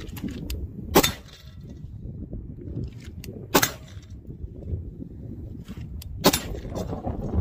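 Three sharp rifle shots, about two and a half seconds apart, over steady low wind rumble on the microphone.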